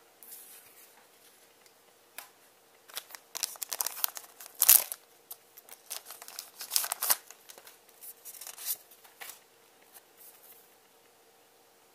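A foil booster pack of trading cards being opened by hand: a run of crinkling and sharp ripping or snipping of the wrapper, the loudest rip a little before the middle, then lighter rustling.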